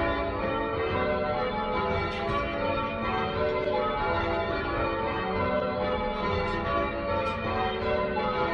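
Church tower bells change ringing: bells struck one after another in a steady succession, each tone ringing on over the next.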